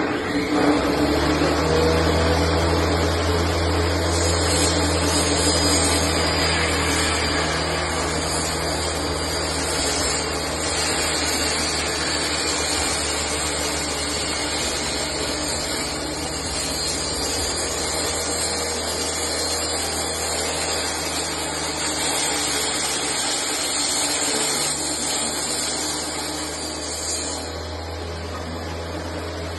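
Table saw switched on suddenly and running steadily with a constant low hum and hiss while a wooden board is fed through the blade.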